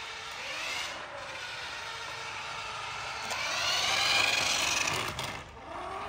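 Small electric drive motor and plastic gearbox of a remote-control toy cement mixer truck whining as it drives on a tiled floor, the pitch rising briefly about a second in and again more strongly from about three to five seconds, then dropping off for a moment near the end.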